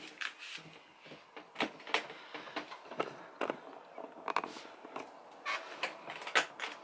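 Scattered clicks and knocks from hands handling an aluminium vanity case, touching the handle and working its metal latches.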